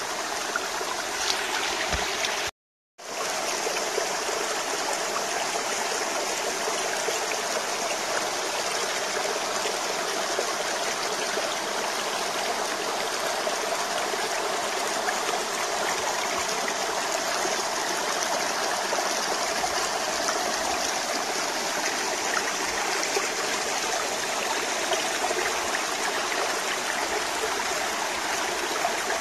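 Small rocky mountain brook running and trickling over stones: a steady, even rush of water. It cuts out completely for a moment about two and a half seconds in.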